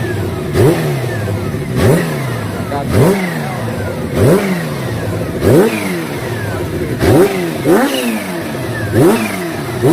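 Kawasaki Ninja H2R's supercharged inline-four engine being revved in short throttle blips, each a quick rise in pitch then a slower fall back to idle, about one every second and a bit.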